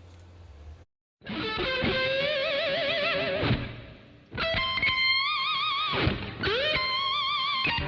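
Background music: a distorted electric guitar playing long held notes with wavering vibrato, in three phrases that start about a second in.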